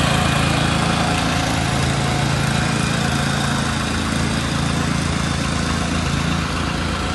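A small engine running steadily close by, with a rapid low chugging pulse under a steady hum.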